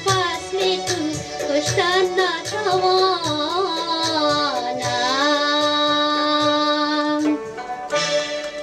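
Afghan song sung over instrumental accompaniment; the singer holds one long note in the middle, and the melody winds up and down around it.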